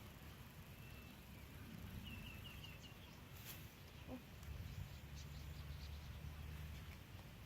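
Quiet outdoor ambience with a short run of high chirps about two seconds in, and a low steady hum in the second half.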